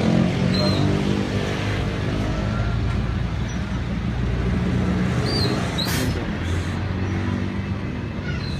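A motor vehicle's engine running, its pitch drifting up and down, with a single sharp click about six seconds in.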